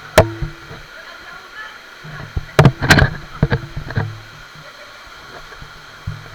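Steady rush of a waterfall, broken by several sharp knocks: one right at the start and a cluster of them about three seconds in.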